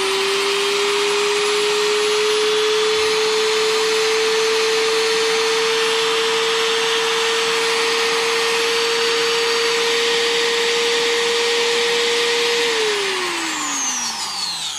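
TopShak TS-ET1 800W trim router running free at full speed with a steady whine, which the owner finds very quiet. About 13 seconds in it is switched off and spins down, the whine falling away.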